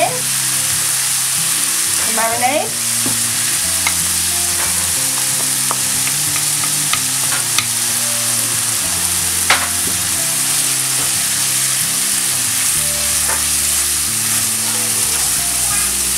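Pork mince sizzling steadily in a hot non-stick frying pan as hoisin marinade is stirred in with a wooden spoon. A few sharp clicks and scrapes of the spoon against the pan are heard, the clearest about halfway through.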